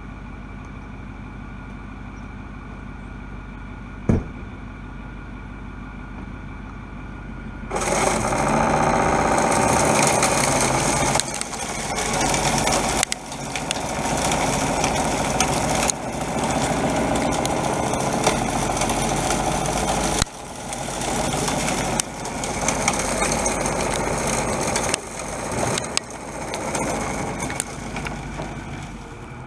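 Truck engine idling, with a single sharp knock about four seconds in; about eight seconds in a SnowEx V-Maxx 9300 electric salt spreader starts and its spinner throws rock salt, a loud rushing spatter over the engine that drops out and picks up again several times.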